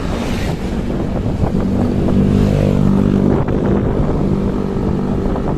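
Road traffic heard from the roadside while moving along a street: a small box truck passes close at the start, followed by a steady engine hum through the middle, over a constant low rumble of wind on the microphone.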